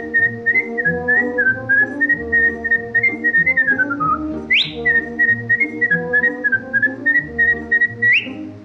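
A tune whistled over a light instrumental accompaniment with a bouncing bass. The whistled melody swoops sharply upward twice, near the middle and at the end.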